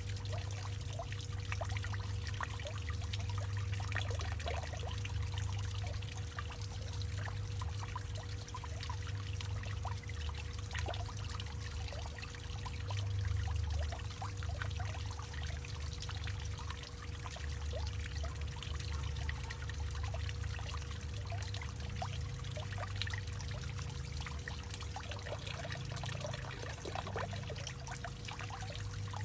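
Water pouring and trickling steadily into a hollowed-out tree trunk, with many small splashes over a deep low rumble.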